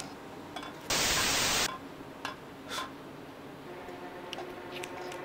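A sudden burst of loud static hiss, a bit under a second long, that starts and cuts off abruptly about a second in. A few faint clicks and low room tone follow.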